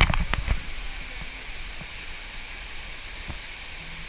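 Waterfall cascading, a steady rush of falling water. A few knocks and bumps in the first half second.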